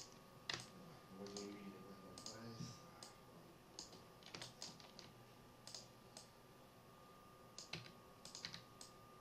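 Faint, irregular clicks and taps of a computer keyboard and mouse, singly and in small clusters, over a thin steady high tone.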